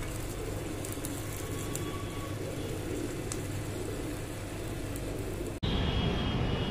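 Gas stove burner flame running steadily under a small steel pot, with a few faint crackles from the heating contents. It cuts off suddenly near the end to a louder, steady traffic hum from a city street.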